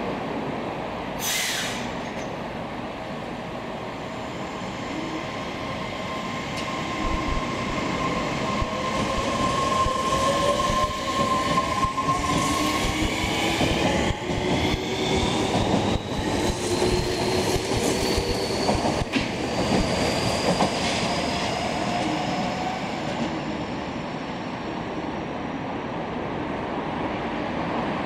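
A subway train pulling away and picking up speed, its electric traction motors whining in several tones that climb steadily in pitch over the rumble of the running gear.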